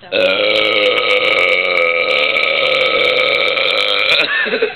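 One long, loud belch of about four seconds at a nearly steady pitch, brought up by a 24 oz beer that was just shotgunned.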